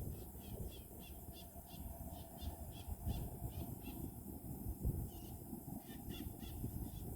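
A bird calling in a quick series of short high notes, about three a second, pausing about four seconds in and then giving a few more, over a low steady rumble.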